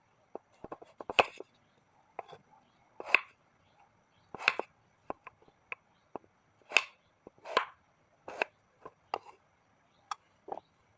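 Irregular knocks and clatter of kitchen items being handled and set down on a counter: about a dozen sharp taps at uneven intervals, some with a brief ring.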